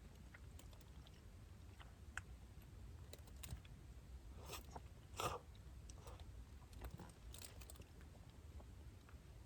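A person eating duck hotpot close to the microphone: faint chewing and biting with scattered small clicks and mouth noises. The loudest is a short burst about five seconds in.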